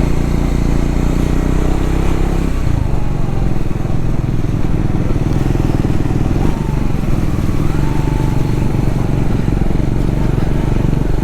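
Triumph Scrambler 400X's single-cylinder engine running steadily under way, with a change in its note about two and a half seconds in.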